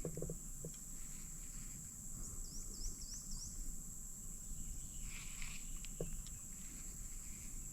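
Steady high-pitched drone of a summer insect chorus over a low outdoor rumble, with a few faint clicks and a quick run of short high chirps about two seconds in.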